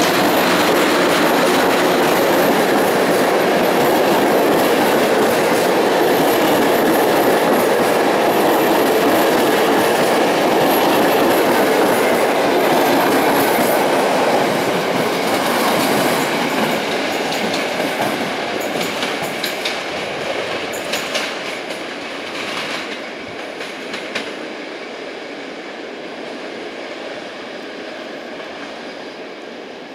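Passenger train hauled by an EP07 electric locomotive rolling past at close range, its wheels clattering over the rail joints. The noise stays steady for about fifteen seconds, then fades as the last coach pulls away, with a run of sharp clicks from the wheels on the joints as it goes.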